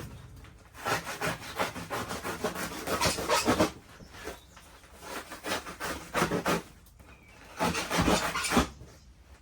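Utility knife sawing through the insulation wrap on a sheet-metal supply plenum to cut out the openings for the duct collars, in three bouts of rapid back-and-forth strokes with short pauses between.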